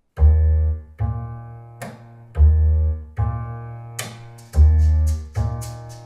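Instrumental music played through a pair of Definitive Technology BP10 bipolar speakers. Heavy, deep bass notes come in pairs under sustained chords, and quick cymbal ticks come in about four seconds in.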